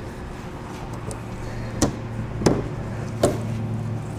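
Three short, sharp clicks spaced under a second apart as a drilled-out plastic push rivet in the fender liner is worked loose by hand, over a steady low hum.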